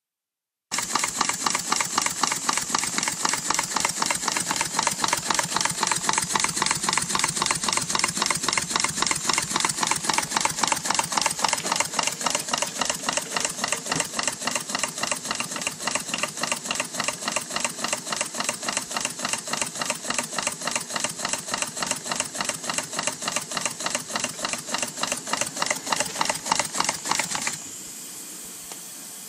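Stuart No. 9 model single-cylinder slide-valve mill engine running on live steam, its exhaust and motion beating fast and evenly. Near the end the beats stop suddenly and a steady steam hiss remains.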